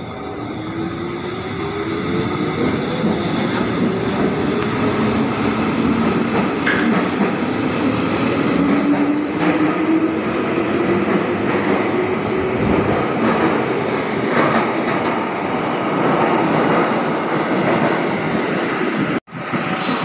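Commuter electric train pulling away from the platform: its motors whine, rising in pitch as it gathers speed, over the steady noise of the train running on the rails. The sound cuts off sharply near the end.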